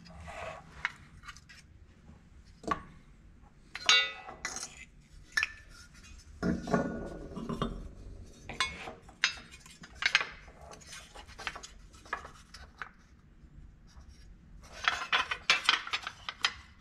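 Metal headlight buckets and a headlight being handled and fitted together on a workbench: scattered clinks and clicks of metal parts knocking together, one ringing briefly about four seconds in, with a quick run of clinks near the end.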